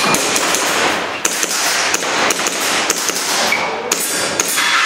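Airsoft pistol firing a quick string of shots, with BBs hitting steel targets that ring with short metallic pings.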